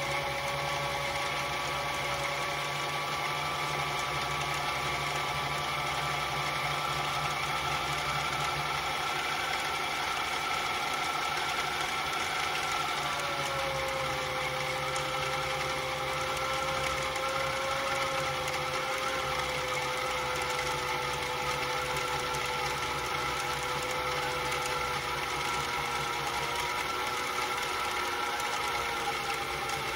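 Janome HD1000 sewing machine's motor running steadily, driving the bobbin winder as it fills a bobbin. Its pitch drops slightly about 13 seconds in and then keeps sinking slowly.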